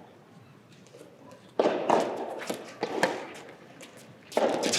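A run of sharp knocks and thuds echoing in a large hall. They start about a second and a half in after a quiet opening, ease off, and a second loud burst begins near the end.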